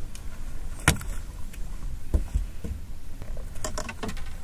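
A hooked bass swung aboard a bass boat. There is one sharp knock about a second in, then a couple of dull thumps as the fish comes onto the deck and is handled.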